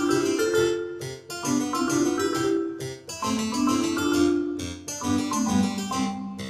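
Background music played on a keyboard instrument, a melody of held notes that change about once a second, in short phrases.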